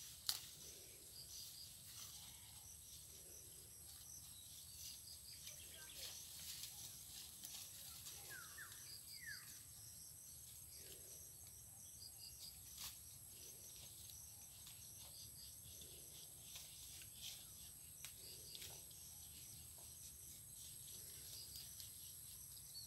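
Faint rural ambience: a steady high-pitched insect drone, with a few quick falling bird chirps about eight to nine seconds in and scattered faint clicks.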